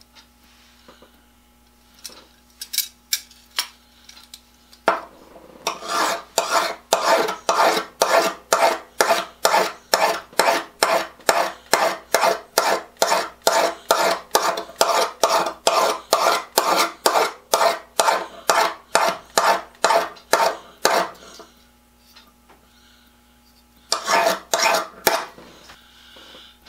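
A hand file scraping along a scissor blade to sharpen dull scissors: a few scattered strokes, then a steady run of even strokes, about two to three a second, for some fifteen seconds. It stops, then comes back in a short burst near the end.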